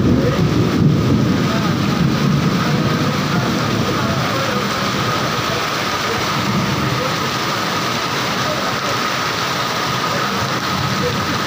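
Heavy downpour: a steady rush of rain falling on the street, roofs and parked motorcycles, louder and deeper for the first few seconds.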